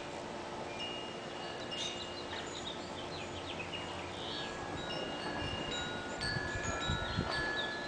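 Wind chimes ringing: several high, clear tones at different pitches sounding one after another and overlapping as they fade.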